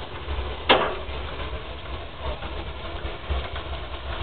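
Miniature railway turntable being pushed round by hand with a narrow-gauge steam locomotive on it: a steady low rumble, with one sharp knock about a second in.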